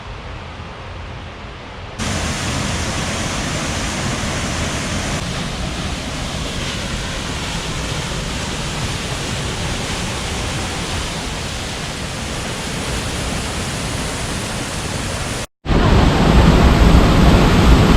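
Waterfall rushing, a steady wash of falling water. It steps up in level abruptly about two seconds in, and after a brief cut to silence near the end it comes back louder and deeper.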